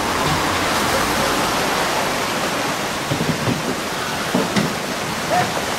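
Steady rushing hiss of rain and flowing river water, with a few dull low thumps in the second half.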